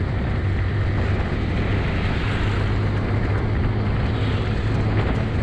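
Motorcycle riding along at a steady pace: a continuous low engine hum under an even rushing noise.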